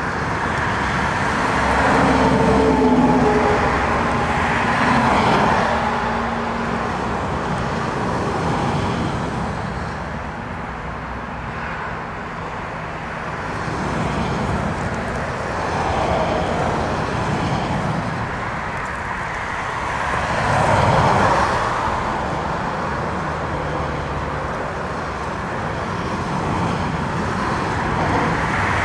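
Steady rumble of a jet airliner's engines at low taxi power, mixed with gusting storm wind, swelling and fading several times.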